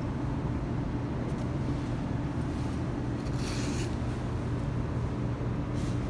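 Steady low hum of a running motor, with a short hiss a little past halfway.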